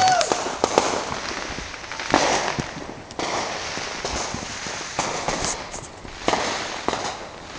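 Fireworks going off: a run of sharp, irregularly spaced bangs and crackles, roughly one a second, over a steady hiss.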